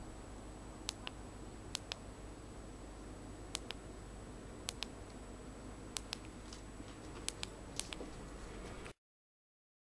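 Switch of a Lumapower Signature GX flashlight clicked several times, each a quick double click of press and release, as the light is turned on and stepped through its brightness levels. A steady faint hiss lies underneath, and the sound cuts off abruptly near the end.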